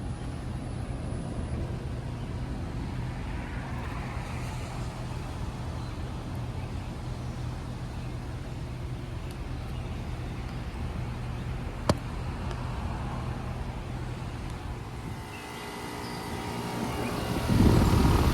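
Residential heat pump outdoor unit running in cooling mode: the compressor and condenser fan make a steady hum, with a single sharp click partway through. Near the end the sound changes to a different set of steady tones and grows louder with a rushing noise.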